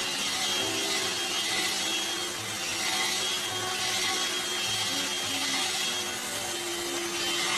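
Vacuum cleaner running, its hiss swelling and easing about once a second.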